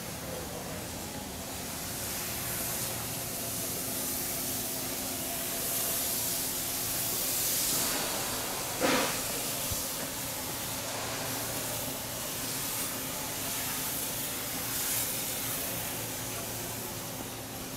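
Steady hissing ambient noise that swells and fades, over a faint low hum, with one short loud knock about nine seconds in.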